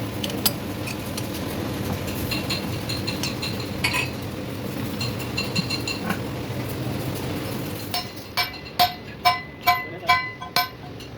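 Light metal clinks over a steady workshop background, then, from near the end, a regular run of sharp ringing strikes of a hammer on a steel part, about two to three a second.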